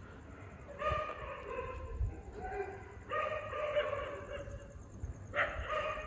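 Dogs howling at night: long, drawn-out cries that start about a second in, about three seconds in, and again near the end, sometimes overlapping.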